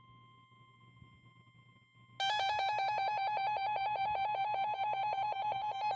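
Weather alert radio sounding: a faint steady alert tone, then about two seconds in a loud alarm that warbles quickly between two pitches, signalling a newly received warning.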